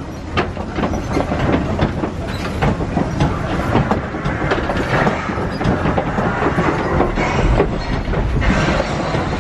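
Safari truck rattling and clattering across a swaying wooden bridge, a dense run of knocks and creaks. A deeper rumble comes about seven seconds in.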